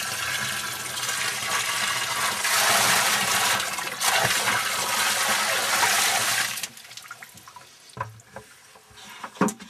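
Water poured from a bucket into a sump pit, splashing loudly onto the water and the sump pump below. The pour stops about two-thirds of the way through, followed by a few light knocks.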